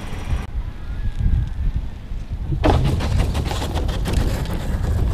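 Strong wind buffeting the microphone: a heavy low rumble with crackling gusts, changing abruptly about half a second in and again about two and a half seconds in.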